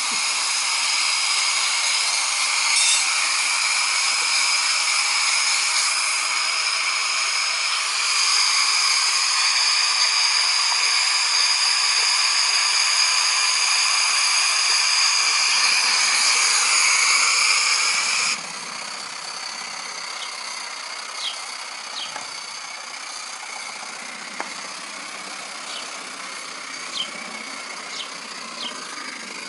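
Coal-fired vertical-boiler model steam locomotive: a loud, steady hiss with a high whine that stops abruptly about 18 seconds in, leaving a quieter steady running sound with a few light clicks.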